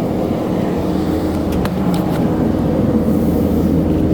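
Kubota skid steer's diesel engine running steadily, with a few faint clicks partway through.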